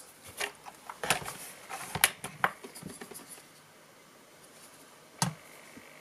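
Light clicks and taps as a small titanium framelock folding knife is handled and laid on a stainless steel kitchen scale. There are a few in quick succession over the first couple of seconds, then a lull, then one more sharp tap about five seconds in.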